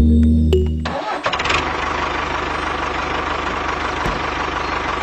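A short stretch of music cuts off about a second in, and a tractor engine comes in and runs steadily.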